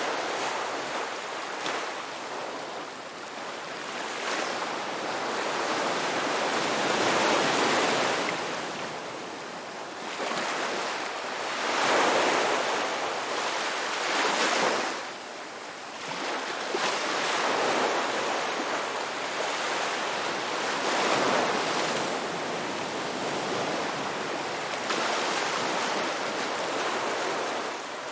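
Sea waves breaking and washing up a shore, a steady surf that swells and eases every few seconds with several louder breakers.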